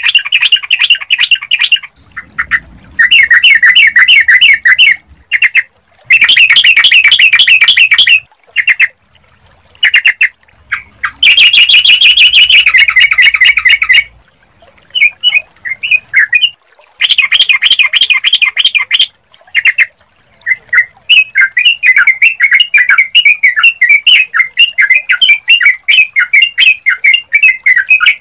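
Yellow-vented bulbul singing: bursts of rapid chattering notes, each one to three seconds long with short pauses between, running on without a break over the last several seconds.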